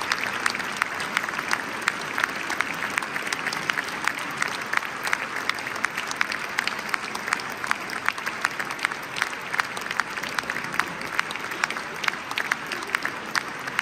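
Audience applauding steadily, with sharp individual claps standing out from the dense clapping.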